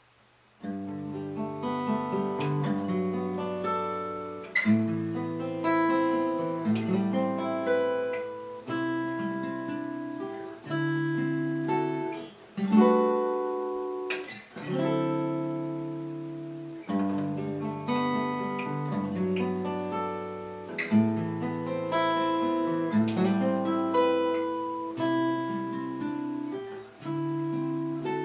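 Solo fingerstyle acoustic guitar playing a piece built on ninth-chord voicings, with plucked chords and melody notes left to ring. The playing starts about half a second in.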